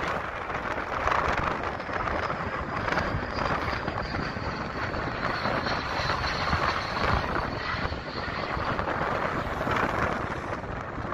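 Jet airliner engines passing overhead: a steady rush of engine noise with a faint high whine that slides slightly lower in pitch.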